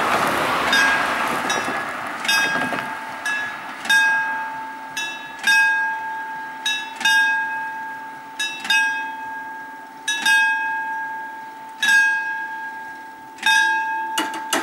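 Italian level crossing warning bell striking over and over, about one to two strikes a second with each ring hanging on; it signals that the crossing is closing for an approaching train as the barriers lower. In the first two to three seconds the rush of a van driving over the crossing fades away under the bell.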